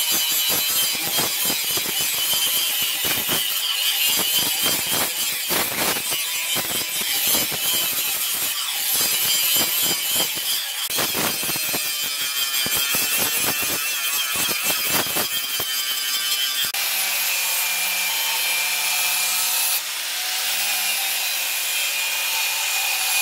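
Electric angle grinder with a sanding disc grinding a steel knife blade made from a brake disc, the grind rising and falling as the disc is worked along the blade. About 17 seconds in it changes to a steadier run with a constant hum and hiss.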